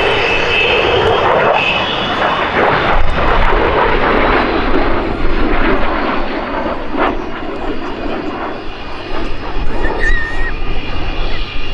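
F-16 Fighting Falcon's single turbofan engine during a flying display: a loud, rushing jet noise that swells and fades as the fighter moves through the sky.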